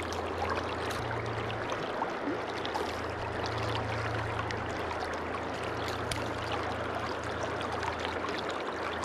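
River current flowing steadily over a shallow riffle: an even rushing water noise, with a few faint small clicks.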